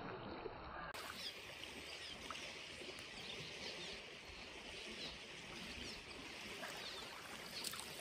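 Quiet creek-side ambience: a steady soft hiss of flowing creek water, with faint short high chirps scattered through it and a few light clicks and rustles near the end.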